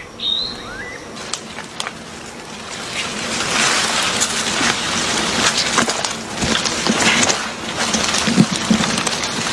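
Tomato plant leaves and stems rustling and crackling as hands push into the foliage and handle the fruit clusters, growing louder about three seconds in. A couple of short bird chirps near the start.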